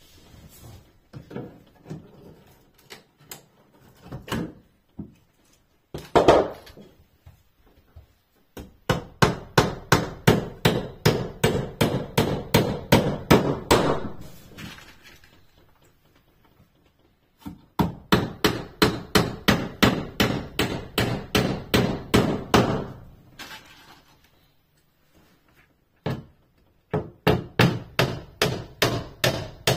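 Hammer driving small nails into a wooden base board: three long runs of quick, even taps at about three a second, with pauses between and a few scattered knocks before them.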